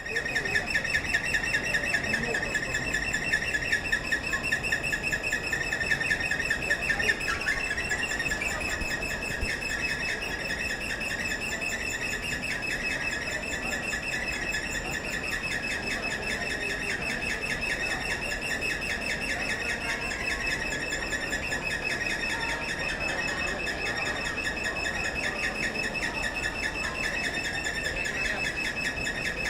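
Metro escalator running with a steady, rapidly pulsing high-pitched squeak, a little louder and choppier in the first seven seconds, over a faint background of people's voices.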